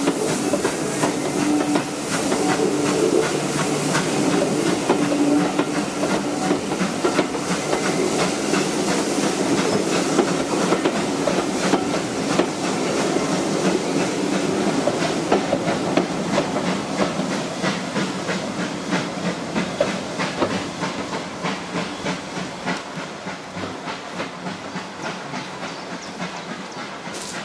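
Steam train running, with a steady hiss of steam and rapid clicking and rattling from the train, growing gradually fainter over the second half.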